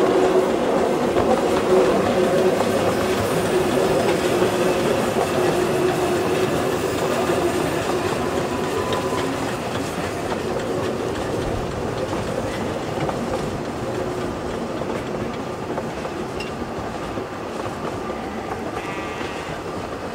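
NG/G16 Garratt steam locomotive hauling a narrow-gauge passenger train past, the locomotive working and the carriages rolling on the rails. The sound fades steadily as the train draws away.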